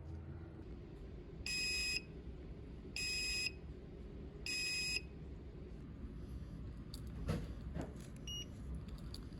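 Electronic device beeping: three identical half-second beeps about a second and a half apart, then a few clicks and one short, higher beep near the end.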